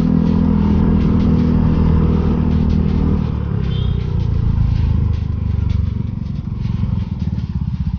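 Yamaha scooter's single-cylinder engine running under steady throttle, then easing off about three seconds in and settling into a lower, slower beat as the bike slows.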